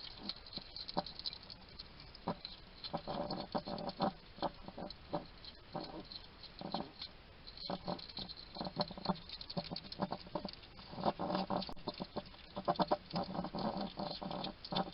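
Wild hedgehog eating: irregular crunching and chewing clicks mixed with short snuffling and huffing noises, in uneven bursts throughout.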